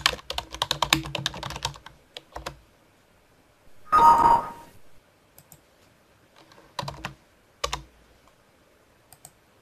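Computer keyboard typing in a quick run for about two seconds. About four seconds in comes a short Windows alert chime, the sound of an error message box popping up because the typed column caption contains a space. A few more scattered keystrokes and clicks follow as the caption is retyped.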